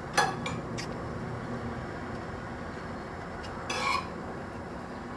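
Sharp clinks of tableware, three in the first second, and a short clatter about four seconds in, over a steady background hum.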